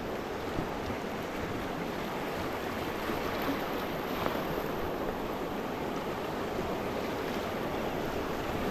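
Steady rush of river water moving around a raft.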